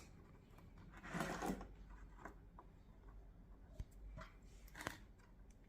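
Faint handling sounds while working on headlight wiring: a short rustle about a second in, then a few light clicks.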